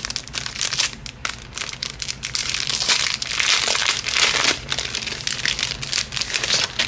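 Plastic packaging crinkling and rustling as it is handled, a dense run of irregular crackles that grows busiest about halfway through.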